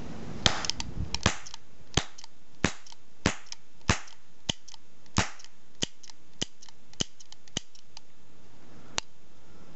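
Blue plastic toy cap gun firing a quick run of sharp cracks, about one every half to two-thirds of a second, with fainter clicks between some of the early shots, then a pause and a single last shot near the end.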